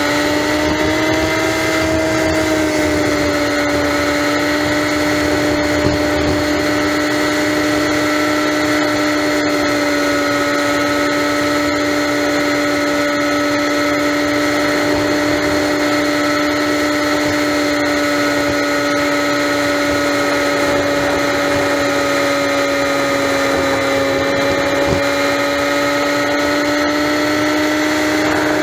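Honda Magna's V4 engine running steadily at highway cruising speed, heard as a steady whine with overtones over wind and road noise. The pitch dips slightly about two seconds in and again near the end, then holds.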